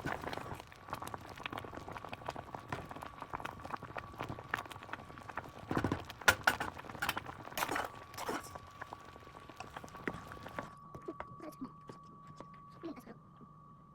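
Kitchen cooking sounds: utensils clicking and knocking against cookware over a steady hiss, with a faint constant high tone. The hiss cuts off suddenly about eleven seconds in, leaving only a few soft knocks.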